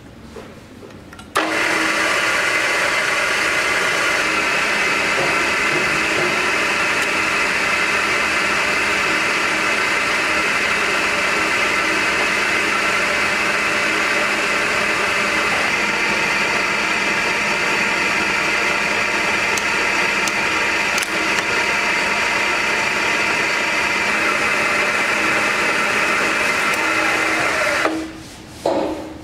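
Supermax YC-1-1/2VS vertical milling machine's variable-speed spindle head running under its motor. It starts with a click about a second in, runs at a steady speed, and is switched off near the end, winding down briefly.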